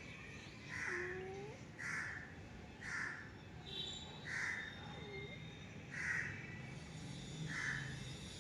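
A crow cawing over and over, roughly once a second, with a faint short rising mew from a cat about a second in and again near the middle.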